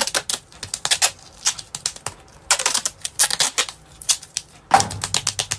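Silver duct tape being pulled off the roll, cut and pressed onto bare skin: an irregular run of sharp crackles and clicks, with a longer rasp about five seconds in.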